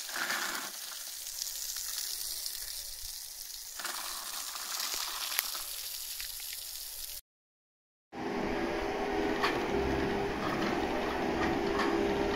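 Water from a hose spraying onto a yacht's teak deck, a steady hiss of spray washing the dust off, cut off suddenly about seven seconds in. After a second's gap, a boatyard travel lift runs with a steady mechanical hum and low rumble as it carries the yacht.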